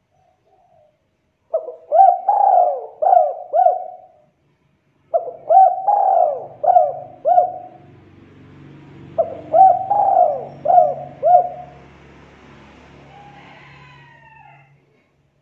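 Spotted dove (tekukur) cooing: three phrases of about five coos each, separated by short pauses. A faint low hum runs under the latter half.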